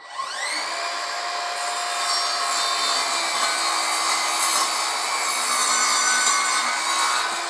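Evolution R185SMS 18V cordless sliding mitre saw spinning up with a rising whine, then cutting steadily through a softwood 4x2 stud without bogging down, and stopping suddenly near the end.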